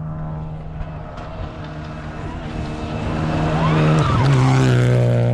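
Rally car engine running at steady revs, growing louder as it approaches; its note drops in pitch about four seconds in as the sound peaks.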